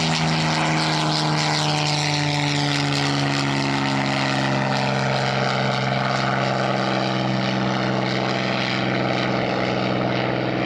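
Supermarine Spitfire's V12 piston engine running hard as the fighter climbs away just after takeoff. Its drone drops a little in pitch over the first few seconds, then holds steady.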